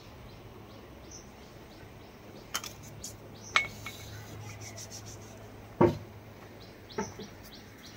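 Metal tools and parts clinking on an amplifier repair bench: about five sharp clicks, the loudest about six seconds in, over a faint steady low hum.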